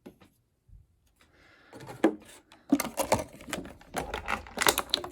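Small plastic packaging crinkling and clicking as it is handled and opened, a few faint clicks at first, then a dense run of rapid crackling and tapping from about a second and a half in.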